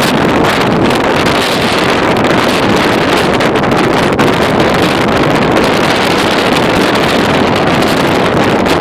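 Loud, steady wind blowing across the microphone.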